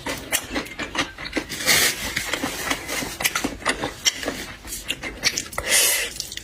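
Close-miked eating of shellfish and seafood: a rapid run of clicks and crackles from shells being handled, cracked and chewed, with two longer hissing bursts of sucking, one about two seconds in and a second near the end.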